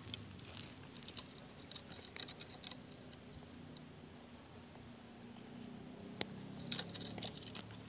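Spinning reel being cranked, giving spells of light metallic clicking about two seconds in and again near the end.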